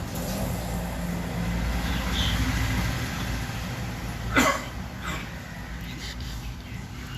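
Steady low background rumble with one sharp click about four and a half seconds in.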